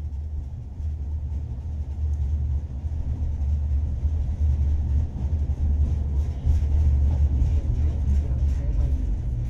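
Interior of a Tatra T3SU tram running along the track: a steady low rumble of the car in motion, growing louder over the first couple of seconds, with faint rattling and ticking above it.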